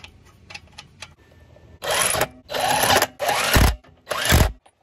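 Cordless impact driver running lug nuts onto the wheel studs in four short bursts, each about half a second long and about half a second apart, the last two ending in a low thump. Before them come a few light clicks of a nut being threaded on by hand.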